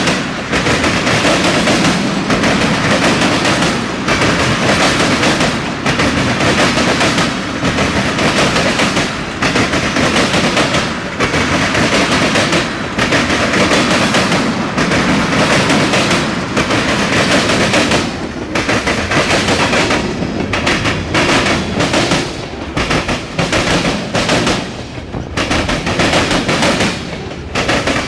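Long mixed freight train's cars rolling past close by: a loud, continuous rattle and clatter of wheels and car bodies on the rails. The sound swells and dips every second or two as the cars go by.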